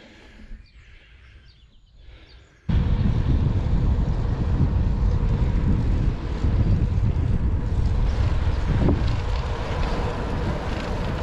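Quiet for the first two and a half seconds, then wind buffeting the microphone of a moving bicycle cuts in abruptly and runs on as a loud, steady low rumble.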